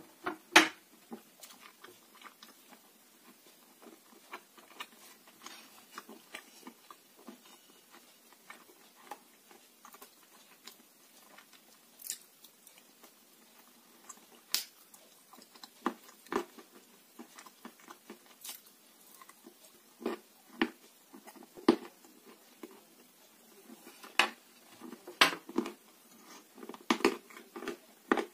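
Close-up crunching and chewing of dry, crumbly grey clay chunks in the mouth: irregular sharp crunches with quiet chewing between them, the loudest bite about half a second in and a denser run of crunches in the last few seconds.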